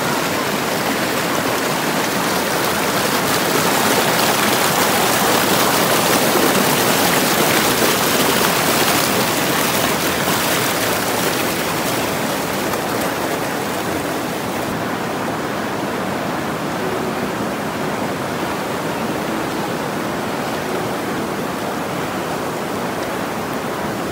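Shallow river rushing and splashing over boulders close to the microphone, a steady churning flow that turns slightly duller about halfway through.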